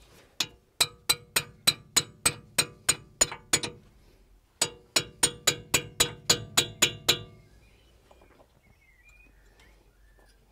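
Hammer tapping a thin steel chisel that is wedged behind a seized plastic ABS wheel speed sensor in a Jaguar XK8's hub, trying to drive the stuck sensor out. There are two quick runs of about ten taps each, about three a second, and each tap rings metallically. A pause of about a second separates the runs, and the tapping stops about seven seconds in.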